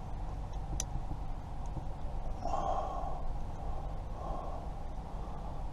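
A person breathing out heavily, twice, over a steady low hum, with one faint click about a second in.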